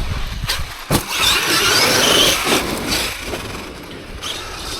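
Traxxas X-Maxx 8S electric RC monster truck driving: the brushless motor and drivetrain whine and waver under throttle over the noise of the big tyres on the ground, fading as the truck moves away. A sharp knock comes about a second in.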